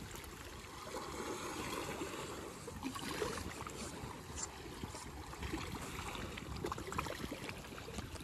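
Shallow sea water lapping and trickling among seaweed-covered rocks, a steady wash with small crackles and drips.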